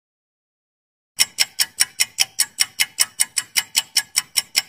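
Ticking countdown-timer sound effect: a fast, even run of sharp ticks, about five a second, starting about a second in.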